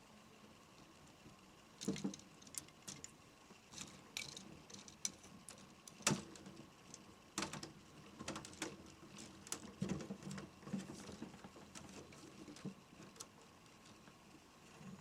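Fingernails tapping and handling small objects: irregular light clicks and taps, with the sharpest ones about 2 and 6 seconds in.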